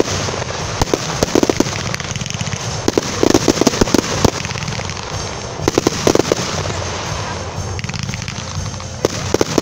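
Fireworks display: sharp bangs and crackling pops from aerial shells and mines, coming in quick clusters over a continuous noisy rumble.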